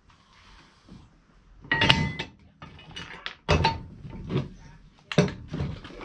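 A series of hard knocks and thumps while a rebuilt, bucket-widened wheel is fitted onto the axle of a Peg Perego John Deere ride-on toy tractor. Three loud knocks land about a second and a half apart, with lighter ones between, and the first has a brief ring.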